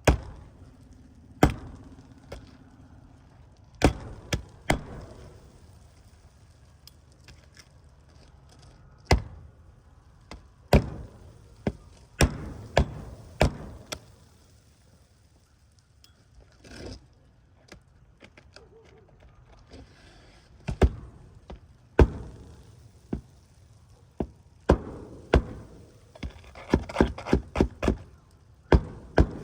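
Hammer striking roofing nails to fasten a new asphalt shingle: sharp separate blows at uneven intervals, with a quick run of strikes near the end.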